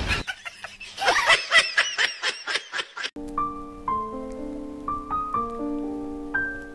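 Giggling laughter in a quick run of short, repeated pitched bursts for about three seconds, then a sudden switch to slow piano music with single notes over held chords.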